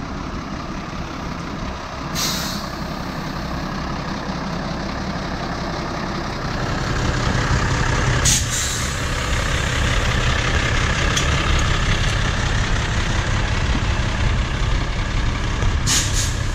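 Iveco Magirus fire engine's diesel engine idling with a steady low rumble that grows louder about six seconds in. Three short hisses of compressed air cut in, about two, eight and sixteen seconds in.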